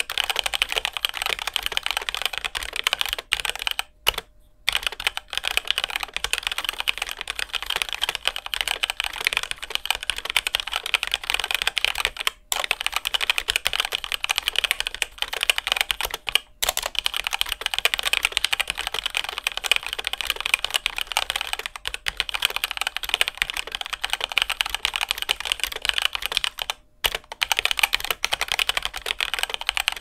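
Fast, continuous typing on a HyperX Alloy Origins Core aluminium tenkeyless mechanical keyboard with HyperX Red linear switches: a dense run of key clacks, broken by a few brief pauses.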